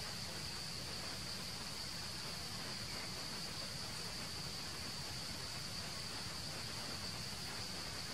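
Steady, unbroken high-pitched drone of insects over a faint even hiss.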